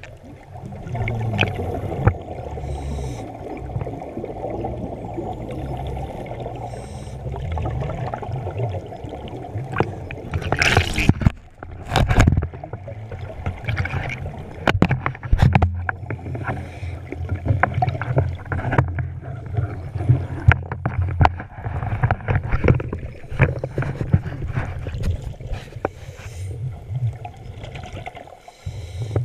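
Water gurgling and sloshing around a small boat, over a heavy, uneven low rumble, with scattered knocks.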